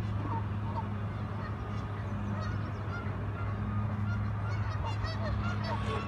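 Geese honking and other waterfowl calling, many short scattered calls, over a steady low hum.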